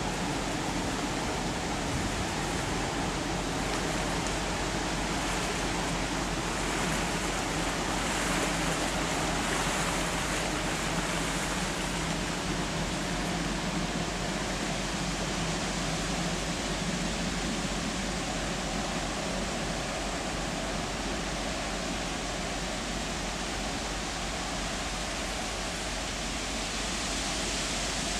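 Steady rushing noise with a faint low hum from the cruise ship The World's engines and ventilation as it passes close by, a little louder about ten seconds in.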